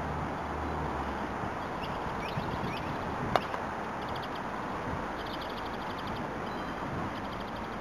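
A croquet mallet strikes a ball once, a single sharp click about three and a half seconds in. A bird calls in short rapid runs of chirps before and after it, over steady outdoor background noise.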